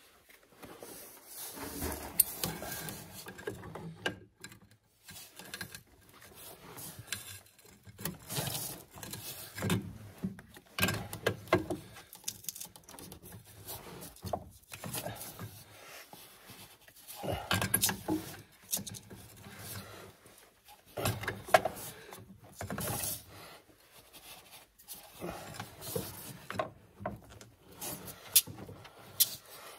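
Hand tools working a PEX-A pipe: clicking, rubbing and scraping from a manual PEX-A expansion tool being worked on a pipe end for an expansion fitting. It comes in irregular bursts with short quiet gaps and a few sharp clicks.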